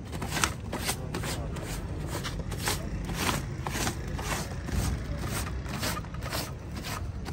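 A cloth wiping briskly across a plastic banner sheet spread over a table, in quick swishing strokes about two or three a second.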